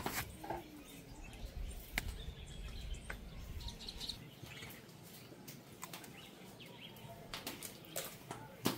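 Small birds chirping with short high notes, over scattered sharp clicks and knocks; the knocks are the loudest sounds, near the start and again near the end.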